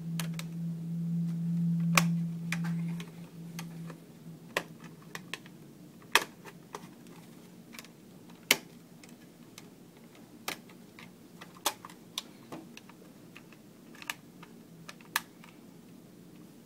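Small flat screwdriver prying at the plastic back housing of an Allen-Bradley PanelView 600 Plus operator panel: sharp plastic clicks and snaps at irregular intervals, about eight in all. A low steady hum is loudest during the first three seconds or so, then fades.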